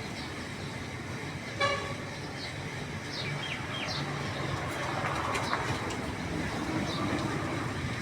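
Street traffic noise with one short, high vehicle-horn toot about one and a half seconds in.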